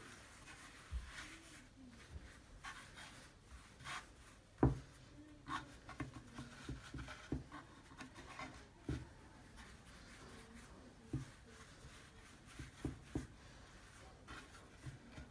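Palms rolling soft potato gnocchi dough into a rope on a floured wooden board: faint rubbing with scattered light taps on the wood, and one sharper knock about four and a half seconds in.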